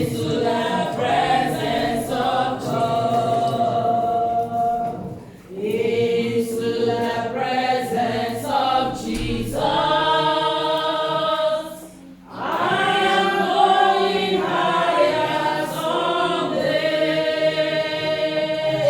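Church choir or congregation singing a worship song in long held phrases, with brief breaths about five and twelve seconds in.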